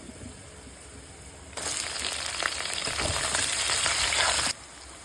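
Food frying and sizzling. The sizzle jumps much louder about one and a half seconds in and cuts off abruptly near the end.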